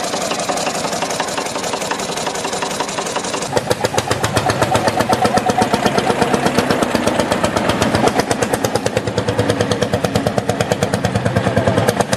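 Engine running with a rapid, even knocking rhythm, growing louder and more distinct about three and a half seconds in.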